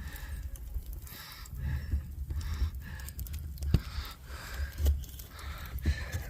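Gusting low rumble of wind buffeting the microphone, with a few sharp clicks or crackles scattered through it; the sharpest comes nearly four seconds in.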